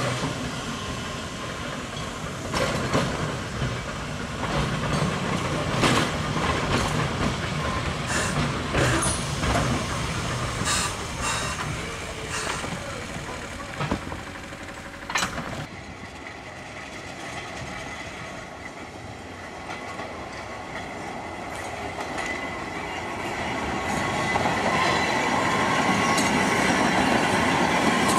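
Manx Electric Railway electric tramcar rolling slowly over station pointwork, its wheels clacking and knocking sharply over the rail joints and crossings. It then gives way to a smoother running sound that grows steadily louder over the last several seconds as a tram approaches.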